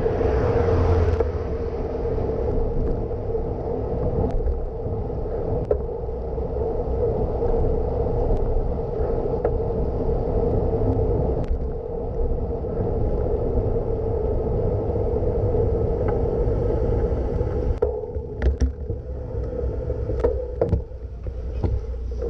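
Steady wind and road noise on the microphone of a camera on a moving bicycle, with a low rumble. Near the end the noise drops and a few sharp clicks and ticks come through.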